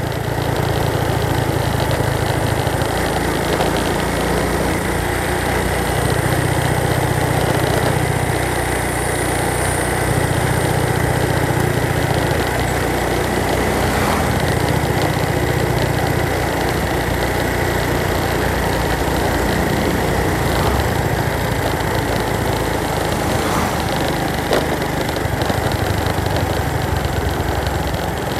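A vehicle engine running steadily under way, with a continuous rush of road and wind noise.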